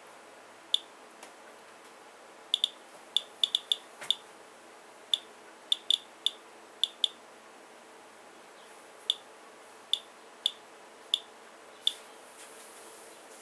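Geiger counter clicking at random, uneven intervals, each click one detected radiation count. About nineteen clicks go by, some in quick clusters and some with gaps of two seconds, a rate near the 85 counts per minute logged for the rainwater sample, well above the 33 counts per minute indoor background.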